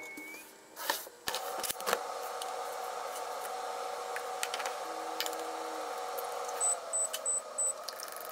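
A few clicks and knocks, then a kitchen appliance running with a steady hum that winds down near the end, followed by four short high beeps.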